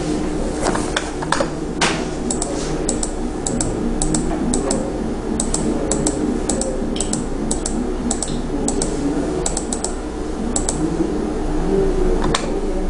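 Irregular clicking and tapping of a computer keyboard and mouse, a few clicks a second, over steady room noise.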